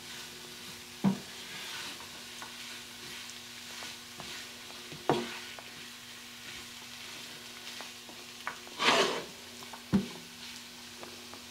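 Floured, diced chicken and onion sizzling softly in a nonstick skillet as it browns, stirred and scraped with a silicone slotted spoon. The spoon knocks against the pan three times, about four seconds apart, with a longer scrape just before the last knock.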